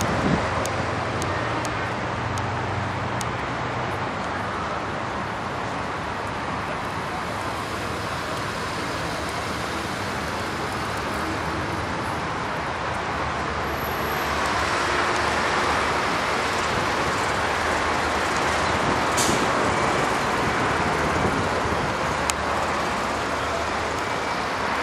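Steady rushing noise of road traffic, growing louder from about halfway through.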